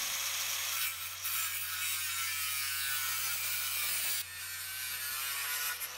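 Angle grinder with a 1 mm thin cutting disc cutting through the lip of metal electrical trunking, a steady high-pitched grinding hiss. About four seconds in it gets quieter and carries on at the lower level.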